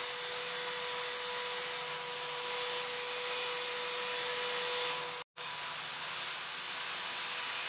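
Milwaukee portable band saw cutting through scrap steel plate: the steady rasp of the blade in the metal, with a steady whine over it for the first five seconds. The sound breaks off for an instant about five seconds in, then the cutting goes on.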